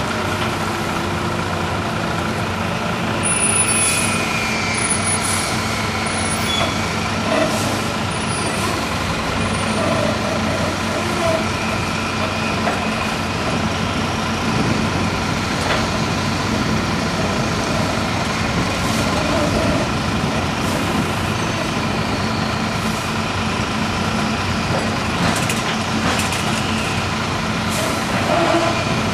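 Heavy forklift's engine running steadily as it lowers a tank container onto a semi-trailer. A few short high squeaks come in the first several seconds, and metal knocks are scattered through, more of them near the end.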